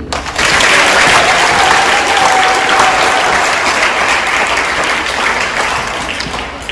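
Large audience applauding in a big auditorium. The clapping starts suddenly just after the start and slowly dies down toward the end.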